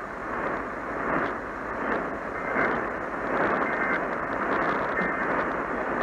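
AM radio static: a steady hiss from a radio's speaker while tuned to 1620 AM, with no clear program audio coming through.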